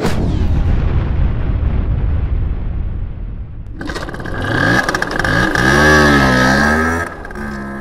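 Small motor scooter engine running, then revving up and down, its pitch rising and falling over the last few seconds.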